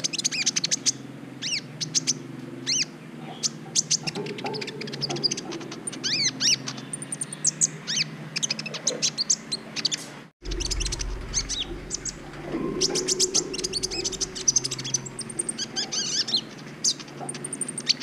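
Sunbird of the kind Indonesian keepers call kolibri ninja singing in its cage: a fast, busy string of sharp high chirps, squeaky notes and short trills, broken by a split-second gap just past the middle.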